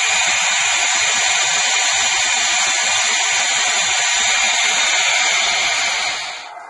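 Steady, loud hiss of released steam from a model train's sound system. It holds even for about six seconds and then stops sharply near the end.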